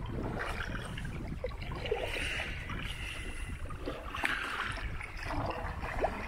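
Paddle strokes in lake water: a few splashing, dripping swishes about two seconds apart, over a steady low rumble.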